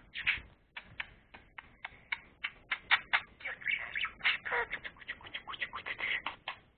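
Budgerigar chattering in a fast run of short chirps and sharp clicks.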